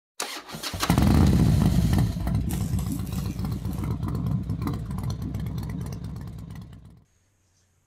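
An engine starting up about a second in and revving, running with a fast, even firing beat that slowly fades away, dropping to near silence about a second before the end.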